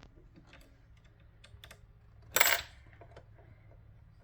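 Small metallic clicks and taps of a small screwdriver working the screw that holds a walking foot onto a sewing machine's presser bar, with one louder, brief metallic clatter about two and a half seconds in.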